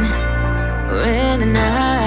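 Background pop song: a sung melody over a steady bass line.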